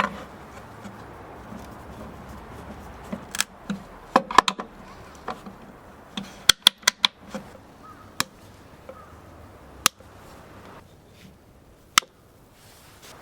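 Scattered sharp clicks and light knocks of tools and parts being handled at the workbench, with a quick run of about five clicks a little past halfway and single sharp clicks near the end.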